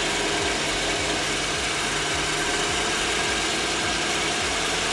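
MerCruiser 5.7 L V8 (350 small-block Chevy) inboard boat engine idling steadily, heard from just above the open engine hatch. It is running evenly, which the owner judges sounds good.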